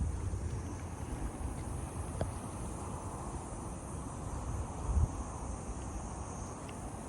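Insects chirring steadily in a high, even band, over low gusts of wind buffeting the microphone, the strongest gust about five seconds in.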